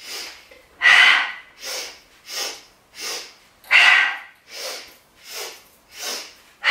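A woman doing Breath of Joy yoga breathing: three short, quick inhales in a row followed by one vigorous, louder exhale, repeated. The loud exhales fall about a second and about four seconds in.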